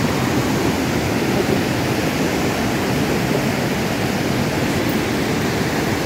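Loud, steady rush of fast white water: Manthoka Waterfall and the river rapids churning just below it.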